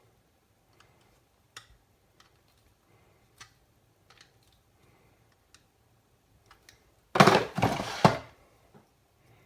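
Scattered light clicks and taps of small parts and a plastic case being handled, then a louder clatter lasting about a second near the end.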